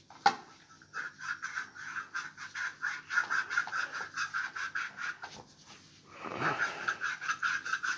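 Feet being scrubbed by hand over a basin of water: rapid, rhythmic scrubbing strokes, several a second, with a short pause a little after five seconds.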